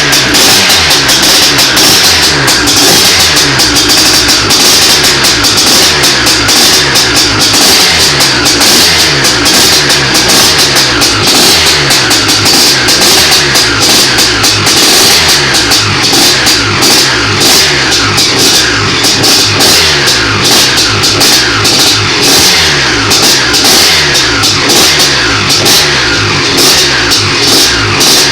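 Loud heavy rock music with a driving drum kit.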